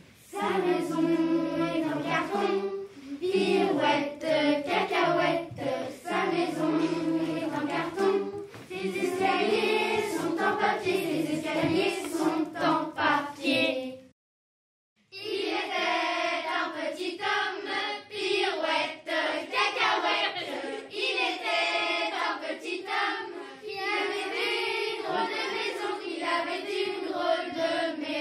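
A group of children singing together in French, a nursery song. The singing cuts out to silence for about a second near the middle, then carries on.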